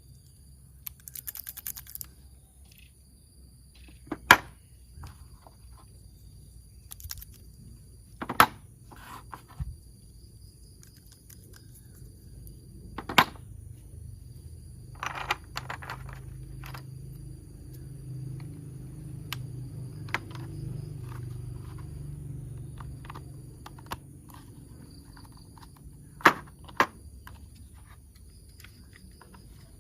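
Hard plastic toy train parts being handled and fitted together: scattered sharp clicks and knocks with short bouts of rattling, and a low hum through the middle.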